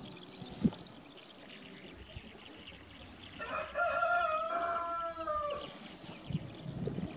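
Rooster crowing once, a single drawn-out crow lasting about two seconds and starting roughly three and a half seconds in. A single sharp click sounds near the start.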